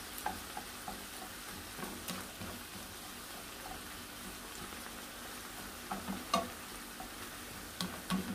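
Shrimp, mussels and sliced onions sizzling steadily in a nonstick frying pan, with a plastic slotted spatula stirring and scraping against the pan now and then, the scrapes loudest about six seconds in and near the end.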